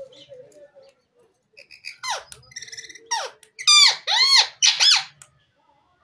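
Indian ringneck parakeet calling. A high falling note and a short buzzing trill come about two seconds in, then three loud, arching squawks in quick succession near the end.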